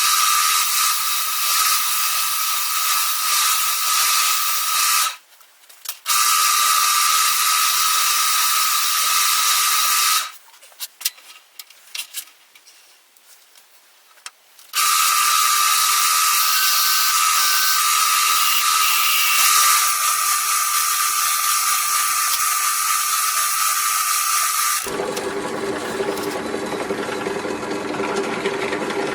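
Electric power tool running with a steady high whine and hiss. It cuts off abruptly about five seconds in, starts again, then stops for about four seconds from ten seconds in, with a few clicks in the gap. About 25 seconds in it changes to a lower, rougher running sound.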